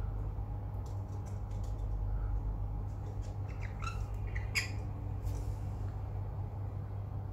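Caged parrots, one of them a rainbow lorikeet, giving a few short, high squawks and chirps a little past the middle, the loudest about four and a half seconds in. A steady low hum runs underneath.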